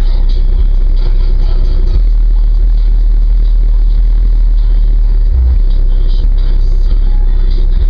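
Car audio subwoofers playing very loud, deep bass tones, held and shifting in pitch a couple of times, loud enough to overload the recording.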